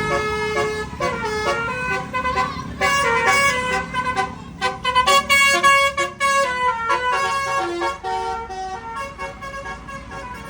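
A bus's basuri musical horn, the multi-trumpet 'telolet' horn, playing a tune in stepping notes, with quick repeated toots through the middle. It fades somewhat toward the end.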